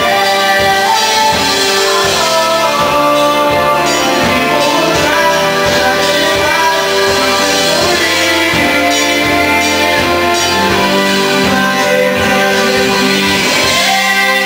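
Live band music: a male lead vocal over keyboards, electric guitars and a drum kit keeping a steady beat.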